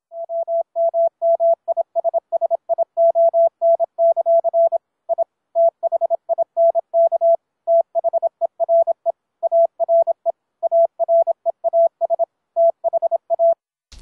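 Morse code: a single steady-pitched tone keyed rapidly on and off in dits and dahs, coming in over a Skype call from another computer. It stops just before the end.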